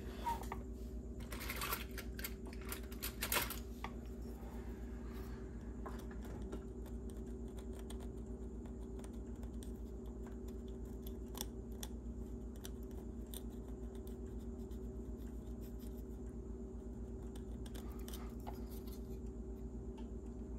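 Faint scratching and light clicks as a circuit board is handled and cleaned after desoldering, bunched in the first few seconds and again near the end. A steady low electrical hum runs underneath.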